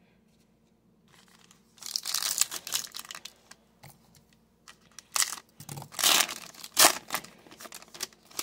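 Foil wrapper of a Bowman football trading card pack being torn open and crinkled by hand. Crackly rustling starts about two seconds in, with the loudest crinkles a little past the middle as the cards are pulled out of the wrapper.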